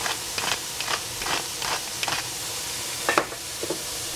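Cabbage stir-frying in a pan: a steady sizzle with repeated spatula scrapes, about two or three a second.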